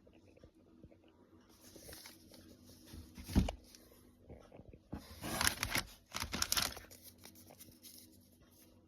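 Packaging crinkling and rustling as it is handled, with a dull thump about three seconds in and two louder bouts of crinkling near the middle.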